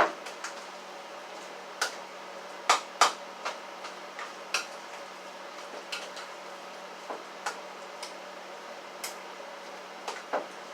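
A spoon knocking and clinking against a mixing bowl at uneven intervals while a thick spinach filling is stirred.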